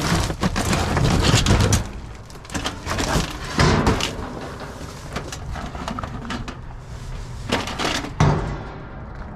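Scrap metal clattering and knocking as it is handled and tossed. A dense run of clatter comes in the first two seconds, then scattered knocks, the loudest about three and a half and eight seconds in.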